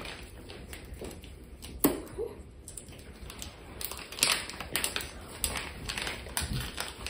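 Plastic squeeze bottle of okonomi sauce being squeezed, the sauce spluttering out in small clicks and crackles that come thicker from about four seconds in, with a single sharp tap about two seconds in.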